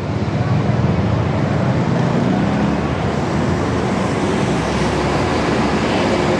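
Steady noise of heavy city street traffic, with buses and cars passing close by.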